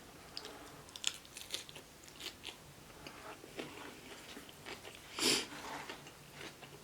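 Close-up chewing and crunching of food, with many soft clicks, and one louder crunch about five seconds in.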